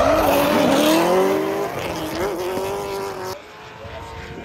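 Drift car sliding with its tyres screeching and its engine revving up and down. About three seconds in, the sound changes abruptly to a quieter, steadier engine drone.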